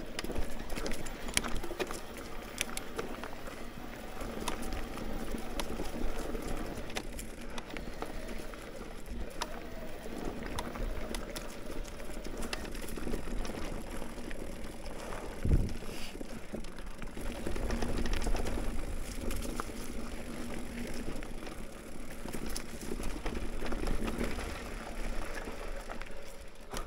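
Mountain bike riding down a dirt trail: tyres running over dirt and rocks with frequent clicks and rattles from the bike, over a low rumble, and one heavy thump about halfway through.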